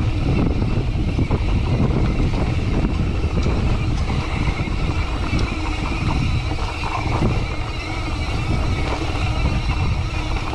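Wind buffeting an action camera's microphone as a mountain bike rolls over a rough, rocky dirt trail, with steady tyre noise and the bike rattling and knocking over stones.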